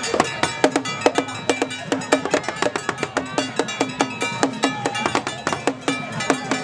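Ghanaian traditional drums beaten in a fast, steady rhythm, several strokes a second, with steady ringing tones sounding above the beat.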